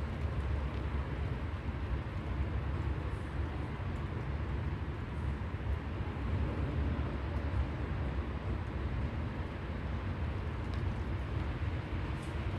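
Steady outdoor city ambience: a constant low rumble with a fainter hiss above it and a few faint ticks.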